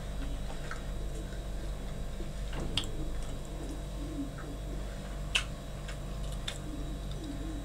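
Steady low room hum with a few light clicks and ticks as a metal loaf tin is handled and turned; the sharpest clicks come about 3 and 5.5 seconds in.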